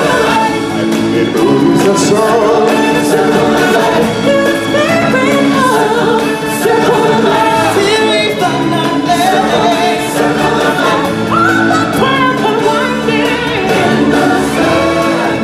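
Live stage-musical song: several voices singing together over loud amplified backing music.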